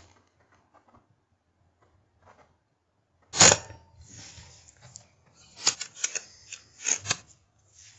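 A single sharp crack of an air rifle firing about three and a half seconds in, with a brief ring after it. A run of smaller clicks and knocks follows.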